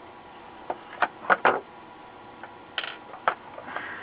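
Short sharp clicks and taps from a circuit board and soldering iron being handled while capacitors are desoldered. There are about half a dozen, the loudest two close together about a second and a half in.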